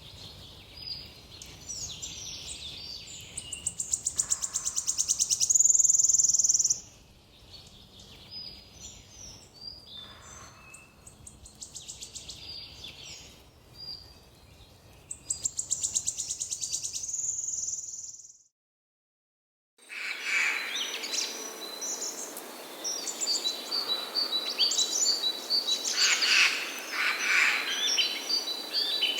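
Wild songbirds calling and singing, with a loud rapid trill that comes twice, about 4 seconds in and again about 15 seconds in. About two-thirds through the sound cuts to silence for a second or so, then a different chorus of birds starts with quick repeated high notes.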